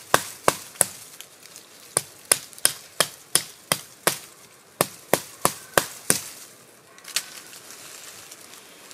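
Ed Martin MK7 fixed-blade bushcraft knife chopping into the trunk of a thin sapling: sharp woody strikes about three a second in quick runs with short pauses, stopping about six seconds in.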